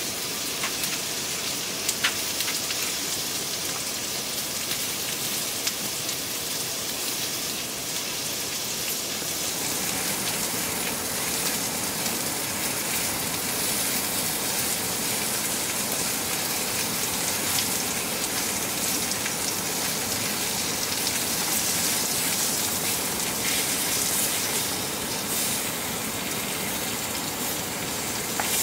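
Steady sizzling of meat, kimchi and bean sprouts frying on a griddle pan over a one-burner gas stove, blended with the even hiss of rain, with a faint click now and then.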